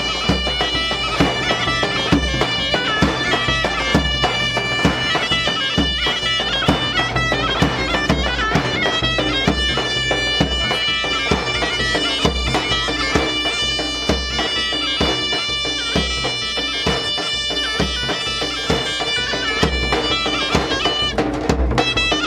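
Folk dance music on a loud, sustained reed pipe, with a large double-headed drum beating a steady rhythm under it.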